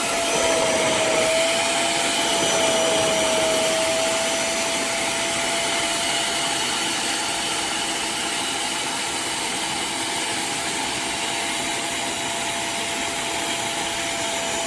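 Hoover CleanSlate portable carpet and upholstery spot cleaner running, its suction motor giving a steady whine over an even rushing noise, with a brief dip in pitch about a second in.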